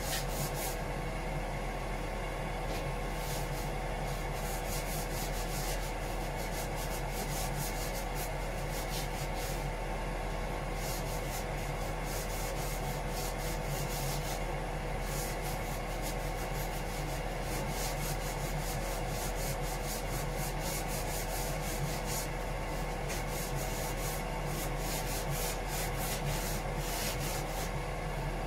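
Sandpaper rubbed by hand in quick back-and-forth strokes, coming in spells, over the engine-room bilge surface as it is prepared for topcoat. A steady machinery hum with a fixed tone runs underneath.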